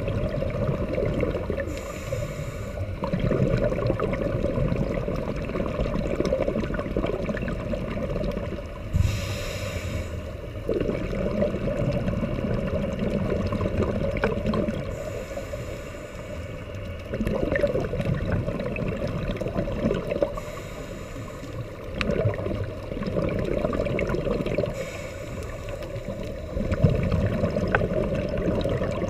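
A scuba diver's regulator breathing underwater, muffled: a short hissing rush about every five to six seconds over a steady bubbling, gurgling rumble.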